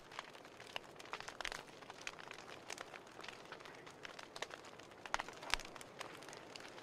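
A burning pile of paper pages crackling: a soft steady hiss under frequent sharp crackles and pops, with a few louder pops about five seconds in.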